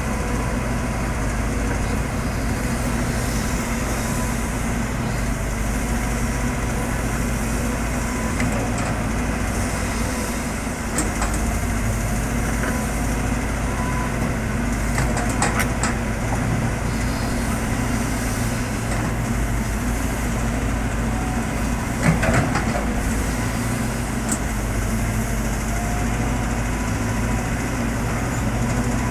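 Heavy diesel earthmoving machinery running steadily, with the engine note shifting about twelve seconds in. A few short, sharp knocks sound through it; the loudest comes about two-thirds of the way through.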